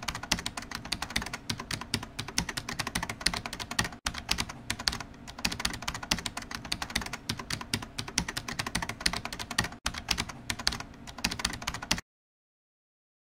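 Rapid, continuous key clicks of typing on a keyboard, a typing sound effect, cutting off suddenly near the end.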